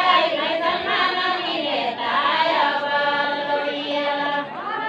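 A group of women singing together, several voices on long held notes that glide between pitches.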